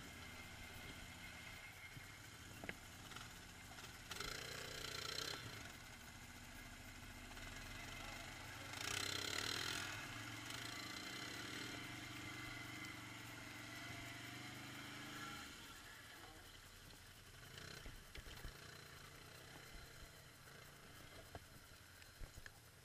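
All-terrain quad engine running as it rides through mud, easing off about fifteen seconds in. Two louder rushes of noise come about four and nine seconds in.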